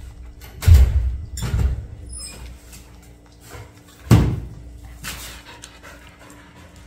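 A cat lapping water from a plastic basin, with several dull thumps: two close together about a second in and one louder one about four seconds in.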